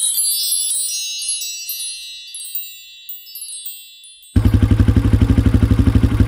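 A sparkly, high tinkling chime sound effect with many quick shimmering notes, fading over about four seconds. About four seconds in, a loud engine cuts in abruptly, running with a fast, even pulsing beat.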